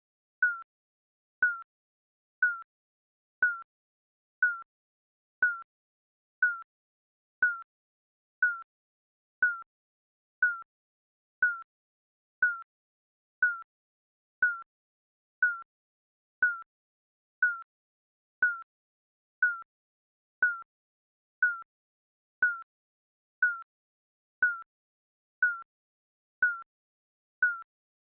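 Digital countdown timer beeping once a second, each beep a short, high electronic tone.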